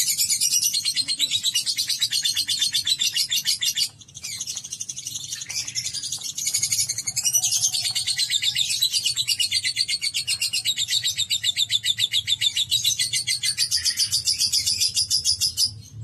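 Lovebird singing its long 'ngekek' chatter: a rapid, unbroken run of shrill chirps that pauses briefly about four seconds in, then goes on.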